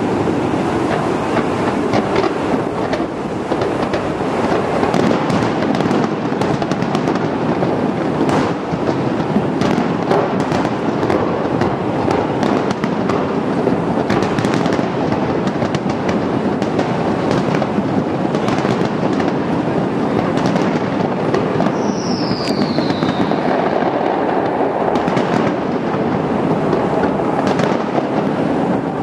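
Aerial fireworks display: shells bursting in quick succession, sharp cracks over a continuous rumble. A brief falling whistle comes about three quarters of the way through.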